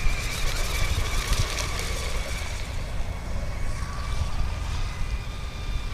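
Electric RC rigger hydroplane, its Aveox brushless motor turning a CMDI three-blade propeller, running on the water: a steady high whine that drifts slightly in pitch, over a low rumble.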